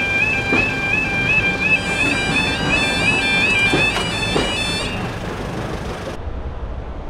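Railway level crossing warning alarm sounding, a repeating two-note warble that stops about five seconds in as the crossing clears. A few knocks sound under it in the first half.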